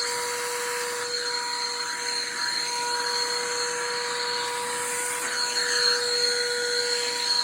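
Stanley 4-gallon wet/dry shop vacuum running: a steady motor whine over rushing air, swelling slightly now and then.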